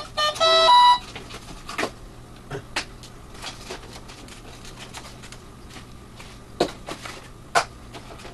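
A few short electronic beeps that step in pitch in the first second, followed by scattered light clicks and taps from hands handling the RC F-16 jet model, with two sharper knocks near the end.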